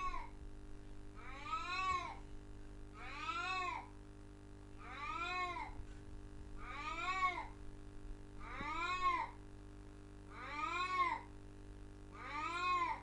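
Domestic cat meowing over and over at a steady pace, about one meow every two seconds, each call rising and then falling in pitch.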